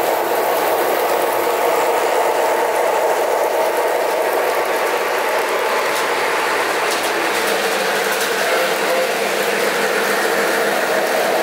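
O gauge model trains running on three-rail track: a steady rolling rumble of wheels and electric motors, with light clicking as the double-stack cars pass close by about six to seven seconds in.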